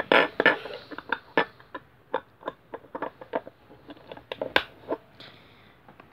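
Small plastic box and its lid knocking and clicking as they are handled and pushed together to close: a quick run of light knocks, loudest just after the start, with a single sharp click about four and a half seconds in.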